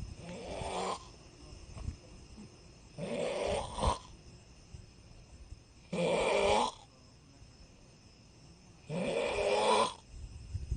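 Someone asleep snoring, a snore of about a second roughly every three seconds with quiet breathing gaps between.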